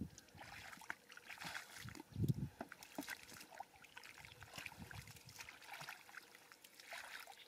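Hands sloshing and squelching through shallow muddy water, groping in the mud, in irregular splashes, with a louder low splash about two seconds in.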